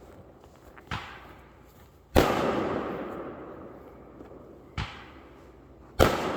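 Neighborhood fireworks going off: four sharp bangs, the loudest about two seconds in and another near the end, each followed by a fading echo.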